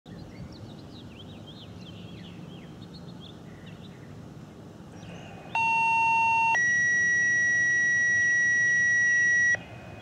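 Birds chirping, then a two-tone sequential alert signal. A steady tone sounds for about a second and switches to a higher steady tone for about three seconds before cutting off sharply. This is the tone that opens the siren-system test, just before the test announcement.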